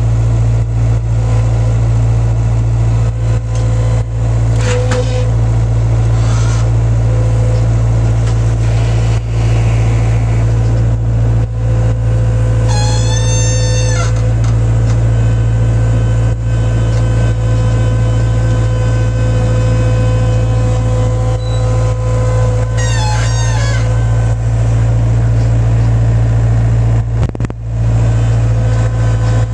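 Skid-steer loader's engine running steadily, heard from inside the cab while it works hay bales, with a loud low hum. Two brief high-pitched squeals rise over it, about halfway through and again some ten seconds later.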